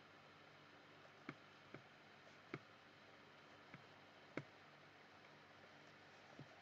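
A handful of faint, sharp computer mouse clicks, irregularly spaced, over a low steady hum, as on-screen selections are made and dragged.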